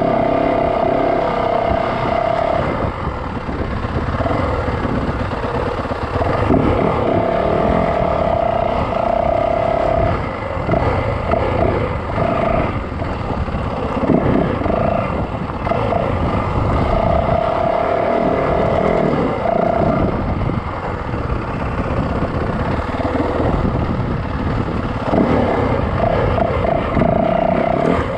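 Yamaha dirt bike on the move along a trail, heard from on board: loud, rough noise from the ride and the ground, with a steady whine that comes and goes in stretches of a few seconds.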